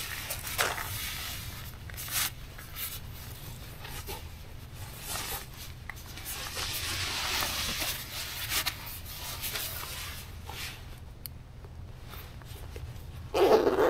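Nylon puffer jacket rustling and swishing in irregular bursts as it is pulled on over a fleece and settled on the shoulders.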